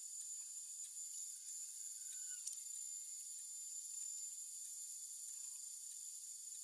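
High-speed CNC spindle running as its small bit mills a copper-clad circuit board: a steady high-pitched whine over a hiss, with one faint tick about two and a half seconds in.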